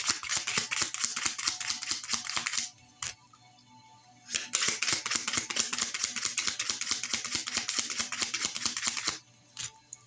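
A deck of oracle cards being shuffled by hand: two spells of quick, dense card-on-card clicking, the first about three seconds long and the second about five seconds long starting some four seconds in.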